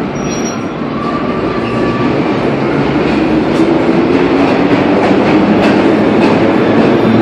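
Vintage subway train running on the rails, a steady rumble with scattered wheel clacks over rail joints, growing louder as it goes.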